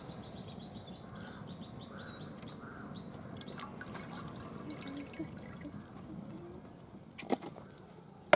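Liquid pouring from a plastic jug into a metal cooking pot, trickling and splashing as the pot fills.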